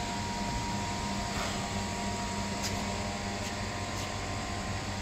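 Steady hum of a laser cleaning machine left running with the beam not firing: a low drone under a faint steady whine, with a few faint ticks.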